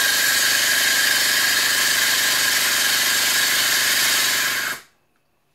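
Depo Racing electronic boost controller's solenoid valve buzzing steadily at its pulse frequency, set here for boost 1 (about 1.5 bar). The buzz cuts off suddenly near the end.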